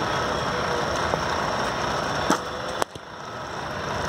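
Cricket bat striking a leather ball in the nets: a sharp crack a little over two seconds in, with a second knock about half a second later, over a steady outdoor noise.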